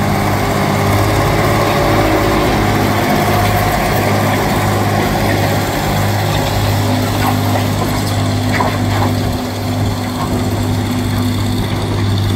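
1968 Case 1030 tractor's six-cylinder diesel engine running steadily as the tractor moves at walking pace.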